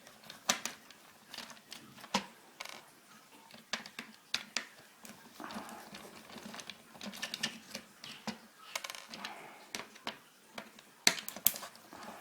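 Irregular clicks and taps of plastic telephone parts and a screwdriver being handled as an old landline phone is taken apart, with a cluster of sharper clicks near the end.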